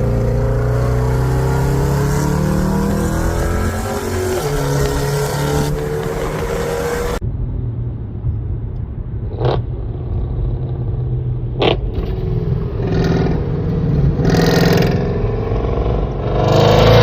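Mercedes-Benz C63 AMG (W204) 6.2-litre V8 revving and running, its note rising and falling. About seven seconds in, the sound turns muffled, as heard from inside the cabin, with two sharp cracks a couple of seconds apart before the engine swells again near the end.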